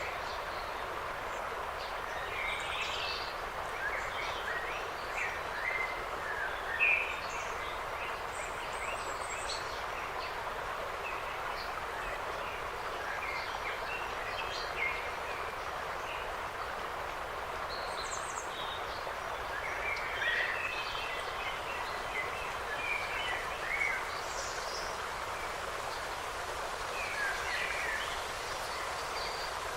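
Forest ambience: many short bird chirps and calls, scattered throughout, over a steady even hiss.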